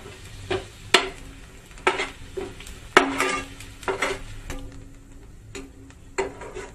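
A spatula stirring sliced onions frying in oil in a nonstick pan, knocking and scraping against the pan about once a second over a light sizzle.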